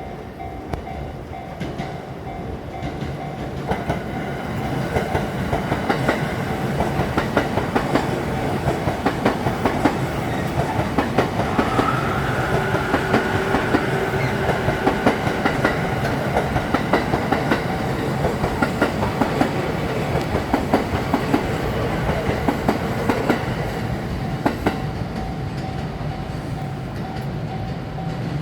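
Limited express Hitachi, an E657-series electric train, passing over a level crossing, its wheels clattering in rapid clicks over the rail joints, louder from about four seconds in and easing after about twenty-four. Underneath, the crossing's warning bell rings steadily, and a brief high whine rises about halfway through the pass.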